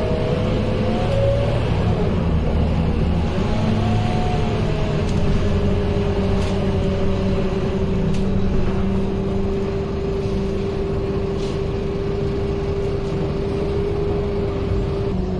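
Cabin sound of a Scania K230UB city bus under way: the diesel engine's low rumble with a drivetrain whine over it. The whine rises and falls in pitch during the first few seconds, then holds one steady pitch for the rest.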